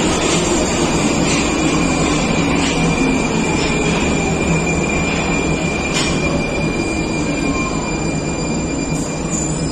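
Prague metro 81-71M train running alongside the platform in an underground station, with a steady high-pitched wheel squeal over the rolling noise and a few sharp clicks.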